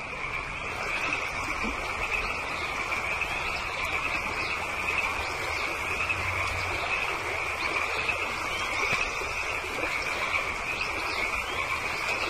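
Forest ambience: a steady, high-pitched chorus of calling creatures, with scattered short bird chirps above it. It swells up over the first second and then holds steady.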